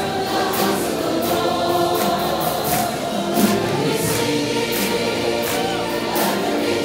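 Gospel choir music: a choir singing over accompaniment with a steady beat.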